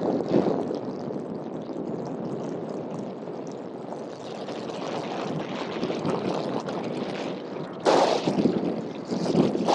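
Steady rushing roar of jet airliner engines, with gusts of wind buffeting the microphone about eight seconds in and again near the end.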